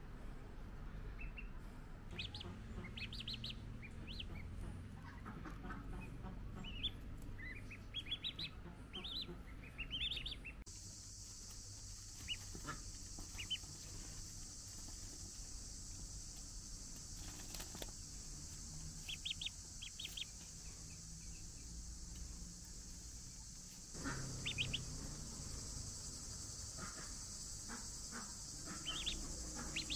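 Ducklings peeping in short, rising chirps, on and off, with a steady high hiss in the background from about ten seconds in.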